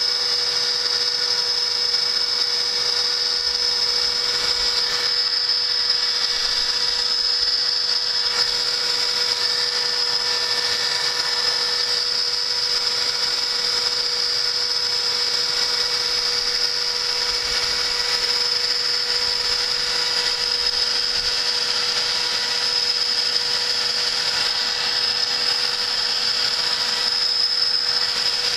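CNC machine spindle running steadily with a high whine while counterboring holes in an 8 mm metal plate for metal screws.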